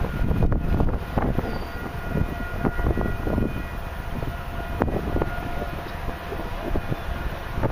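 Gusty wind buffeting the microphone, with a faint, steady, horn-like tone in the background.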